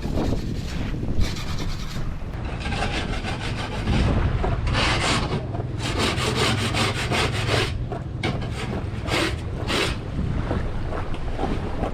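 Hand scrubbing on the bottom of an inflatable dinghy: quick, rasping back-and-forth strokes, about five a second at their busiest, as barnacles and seaweed are worked off the hull.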